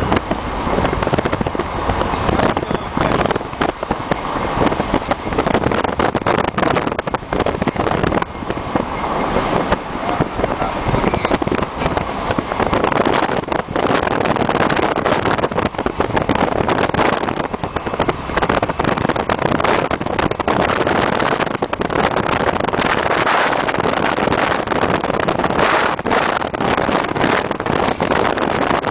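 Wind buffeting a microphone in a moving car, gusting unevenly and distorting, over the steady road noise of the car driving alongside a freight train.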